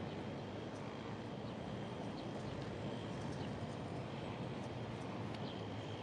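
Sticks of firewood being handled, giving a few faint light clicks over a steady low outdoor rumble.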